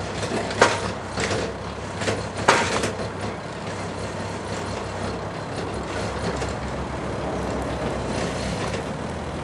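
A large engine running steadily, with a few sharp knocks in the first three seconds, the loudest about half a second in and again about two and a half seconds in.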